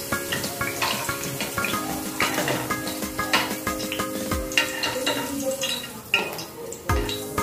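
Hot oil sizzling as fried carrot wedges are lifted out with slotted metal tongs and dropped into a stainless-steel mesh strainer, with frequent clicks and scrapes of metal on the pan and strainer. Background music with held chords plays underneath.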